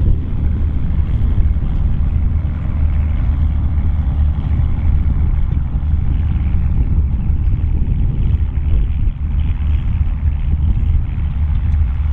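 Volvo BM tractor's diesel engine running steadily, a deep rumble.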